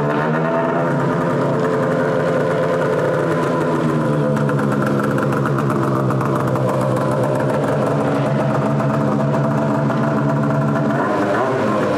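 Arctic Cat Hardcore snowmobile's C-TEC2 two-stroke engine idling steadily, freshly started.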